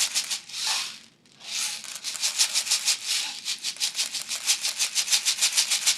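Plastic airsoft BBs rattling in quick, even strokes, about six a second, as .20 g BBs are loaded into a magazine. There is a short break about a second in.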